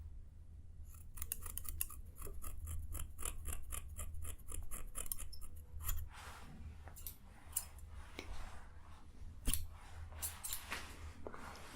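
ASMR ear-cleaning sounds close on the microphone: a quick run of small crisp clicks for a few seconds, then slower scratching and scraping with a few sharper clicks, over a low steady hum.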